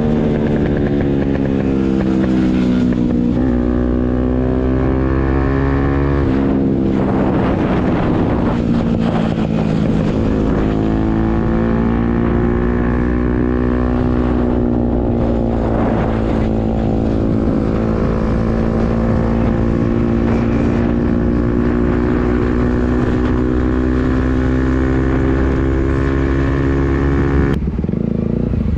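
Motorcycle engine with a modified loud exhaust, running under way. The note rises and falls with the throttle and steps down with a few gear changes, then falls away suddenly about a second before the end as the throttle is shut.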